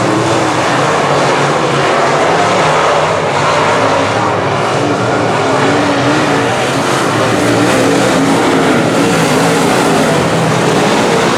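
Several semi late model race cars running together at speed on the oval, their engines overlapping and rising and falling in pitch as the cars go by.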